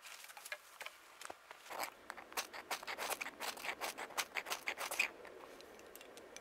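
Knife scraped fast against a fire starter to throw sparks onto tinder: a burst of quick, irregular scratching strokes for about three seconds, the loudest near the end. Then the tinder catching and burning with a faint steady hiss.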